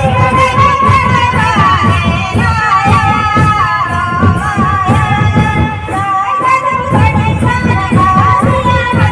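Background music: a song with a sung melody over a steady beat, in a Bollywood style.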